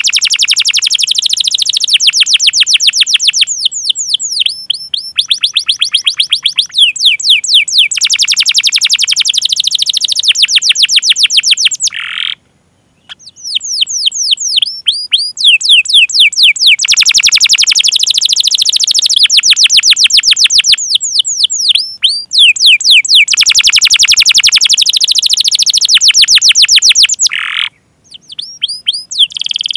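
Domestic canary singing a long, loud song of fast rolling trills made of short falling notes, in phrases a few seconds long. The song breaks off twice, briefly, near the middle and near the end.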